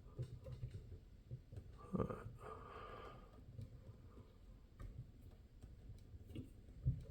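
Faint small clicks and scraping of a lock-picking tool being worked inside a Kwikset SmartKey Gen 3 lock, with a louder click about two seconds in followed by a short scrape.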